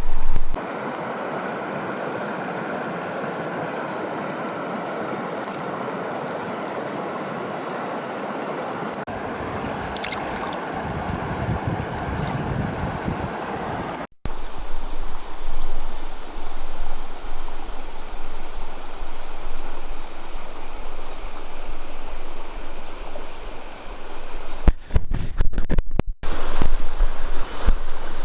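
River water rushing steadily. There is an abrupt break about halfway through, after which the rushing goes on more unevenly, with a few sharp knocks near the end.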